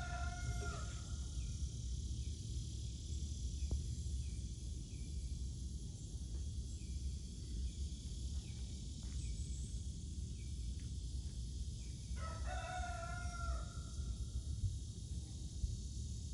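A rooster crowing twice, once at the start and again about twelve seconds in, each crow about a second and a half long, over a steady low rumble and a high hiss.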